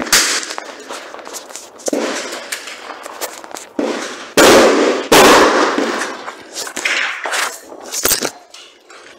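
Gunshots on a rifle range: a string of sharp cracks with a short ringing tail, the two loudest about four and a half and five seconds in, mixed with knocks and rubbing from the phone being handled right at its microphone.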